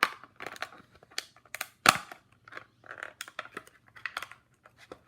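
Plastic toy packaging crackling and clicking in irregular bursts as an action figure is worked out of it, with one sharp snap about two seconds in.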